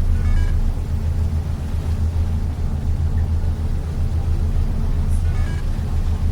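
Cruise boat's engine rumbling steadily as a deep, continuous drone. Two brief high-pitched sounds break in, one near the start and one about five seconds in.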